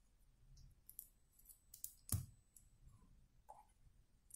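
Small plastic building bricks clicking as they are handled and pressed together: a handful of faint, sharp clicks, the loudest about two seconds in.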